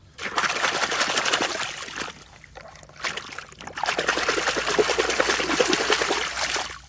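Water running and splashing over toy vehicles being washed, in two spells with a short pause about two seconds in.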